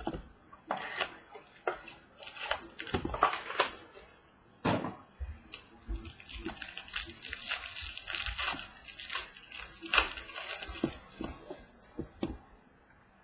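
Hands opening a box of trading cards: wrapper and cardboard crinkling and tearing, with irregular clicks and taps from handling.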